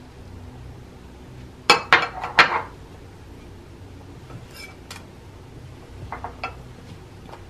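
A butter knife and ceramic bowls clinking: a quick cluster of sharp knocks about two seconds in, then a few lighter clicks near the end as the knife works cold, hard cream cheese.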